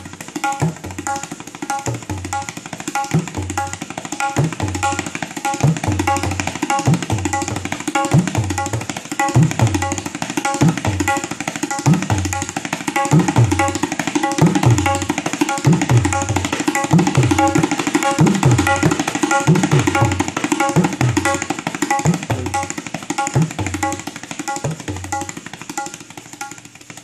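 Tabla (pitched dayan and bass bayan) played in a steady chugging rhythm that imitates a train coming from a distance. The bass drum's strokes swoop in pitch. The playing builds louder through the middle and fades near the end.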